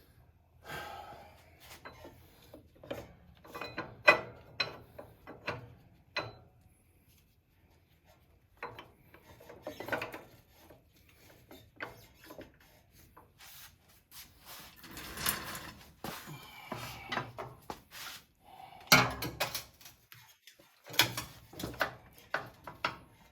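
Irregular metal clinks, knocks and scraping as the rear wheel, belt pulley and axle of a motorcycle are handled and lined up, with the sharpest knocks about four seconds in and near the end.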